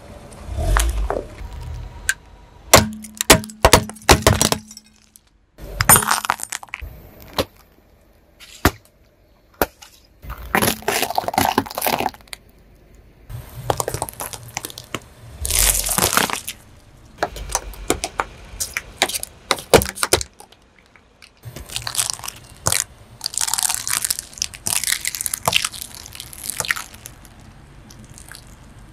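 Things being crushed under a car's tyre: several separate bursts of sharp cracking, each lasting a second or two, with short quiet gaps between them.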